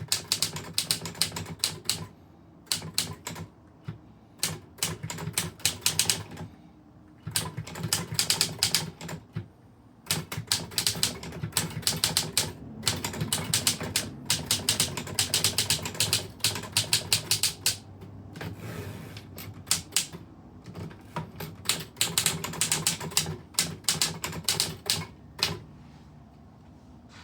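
Typewriter being typed on in quick runs of key strikes, with brief pauses between runs and a steady low hum underneath.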